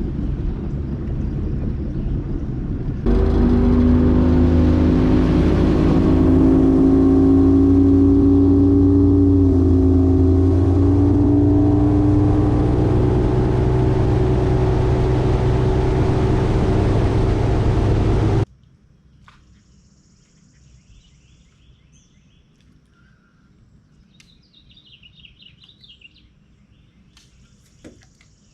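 Bass boat's outboard motor running under way, a steady engine note that climbs slightly as it runs harder from about three seconds in. It cuts off abruptly about two-thirds through, leaving a quiet background with a few bird chirps.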